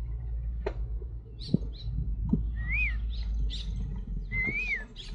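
Birds calling: several short high chirps and two whistled calls that rise and fall, the second a little longer, over a steady low rumble. A few sharp clicks come in the first half.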